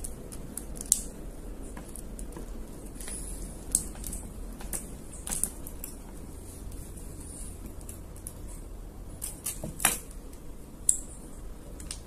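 Small handling sounds of copper magnet wire being worked into the slots of a fan-motor stator: light rustling of the wire with scattered sharp clicks, the loudest two near the end.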